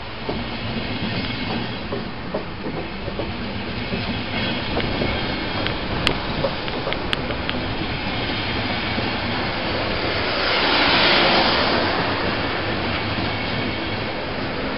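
Train moving along the platform tracks, its wheels clacking over rail joints and points, with a rising and falling rush of noise about ten seconds in.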